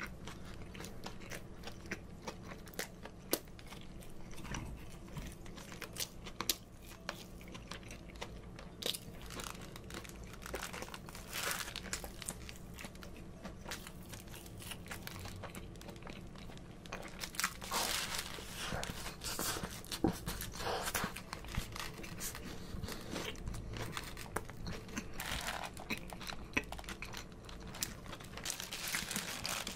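Chewing and crunching of a crispy fried-chicken burger (a Shanghai chicken burger), mixed with crinkling of its foil wrapper. The bites and crinkles come thicker and louder in the second half.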